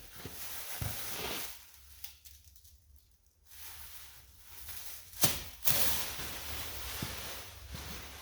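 Handling noise from empty wooden sewing-machine cabinets being moved and opened: faint rubbing, then two sharp wooden knocks about five seconds in.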